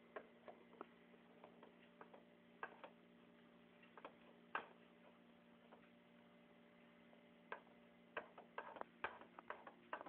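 Faint, scattered clicks of keys and buttons on a compact keyboard with a built-in mouse, coming faster near the end, over a steady low hum.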